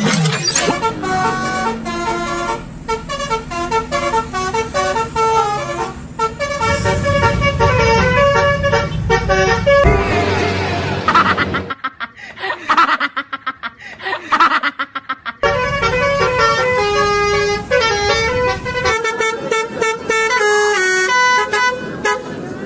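Basuri-style telolet bus horn, a multi-tone musical air horn, playing a tune of quick stepped notes, with a stretch of swooping, stuttering tones in the middle.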